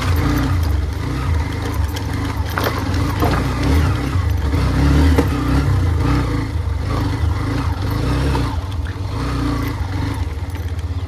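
Hero Xtreme 125R motorcycle's single-cylinder engine running, with scattered sharp clicks and knocks over it; the engine settles into an even pulsing near the end.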